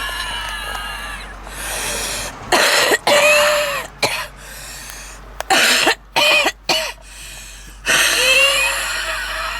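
A woman's smoker's cough: a run of six or so sharp, hacking coughs in quick succession in the middle, between long, wheezy, whistling breaths at the start and near the end.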